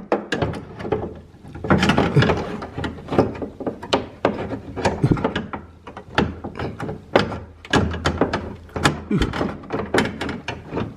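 Irregular clicks, knocks and scrapes of hand work on a car door's window: a C-clamp being set and tightened on the window's track to press a new glide slider clip into place.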